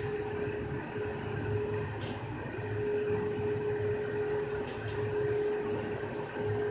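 Ride noise of a 1997 Hyundai traction elevator, heard from inside the car as it travels between floors: a steady hum over a low rumble that swells and fades, with a few sharp clicks.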